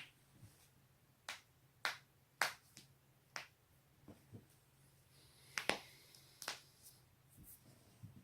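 Joints cracking: a run of about eight sharp, short pops at irregular intervals, a couple of them in quick pairs.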